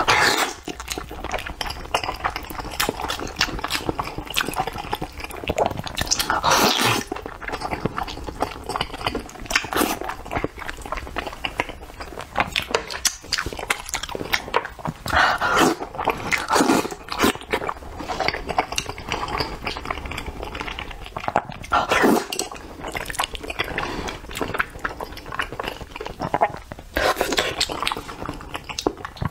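A person eating sauce-coated food close to the microphone: wet slurping, sucking and chewing with lip smacks, with louder slurps every few seconds.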